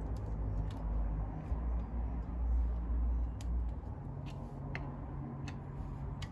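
Small sharp metallic clicks, about six spread through a few seconds, as a screwdriver works a snap ring into its groove on a 4WD locking hub, over a steady low rumble.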